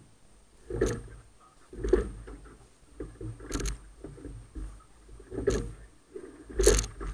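A single scull being rowed: the sculls knock in their oarlocks and against the hull in time with the strokes, with water rushing along the shell. Five knocks come about one to two seconds apart, the loudest near the end.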